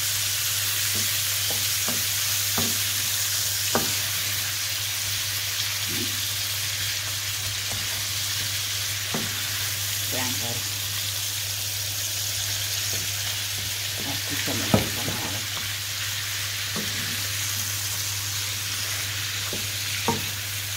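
Pieces of lamb sizzling steadily as they brown in oil in a frying pan. A wooden spatula stirs them, knocking and scraping against the pan now and then, with one sharper knock about fifteen seconds in.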